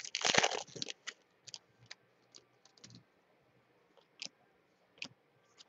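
Baseball trading cards being handled and flipped through by hand: a short rustling, crinkly burst at the start, then a few sharp, isolated clicks of card edges snapping against each other.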